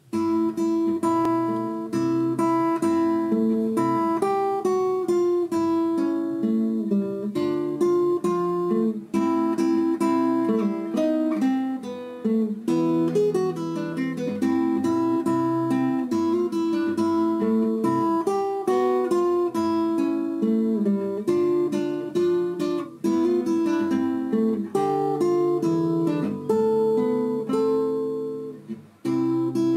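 Acoustic guitar music, with notes picked and strummed in a changing melody, starting suddenly. It breaks off briefly near the end and starts again.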